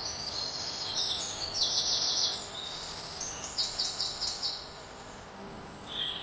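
Songbirds chirping and trilling in quick runs of high notes, loudest about two seconds in and again around four seconds, over a steady faint background hiss.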